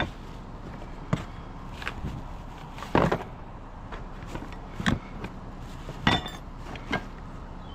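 Metal car parts knocking and clanking against one another as they are handled in a cardboard box, about six separate knocks with the loudest about three seconds in.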